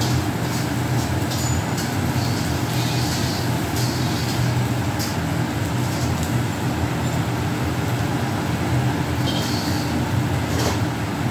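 Steady low drone of a commercial kitchen extractor hood over the cooking station, running continuously, with a few faint clicks of metal utensils.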